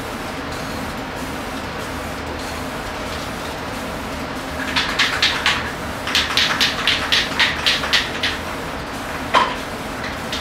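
Rapid back-and-forth scrubbing strokes against a surface, about five a second for a few seconds with a short break midway, over a steady hiss. A single knock comes near the end.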